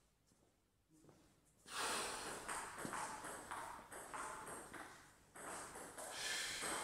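Table tennis ball pinging in a run of quick bounces, mixed with footsteps close by, starting about two seconds in after a near-quiet start.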